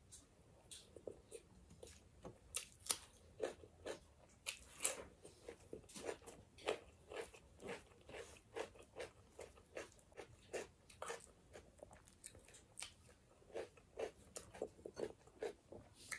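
Close-up mouth sounds of a person biting and chewing crisp lettuce leaves: a steady run of crunching chews, about two to three a second, with a few louder crunches.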